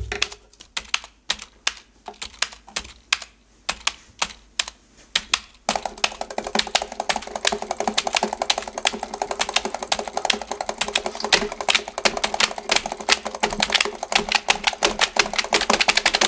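Computer keyboards and mouse buttons played as percussion. Sparse, separate clicks for about the first six seconds, then a fast, dense clatter of typing from several keyboards at once.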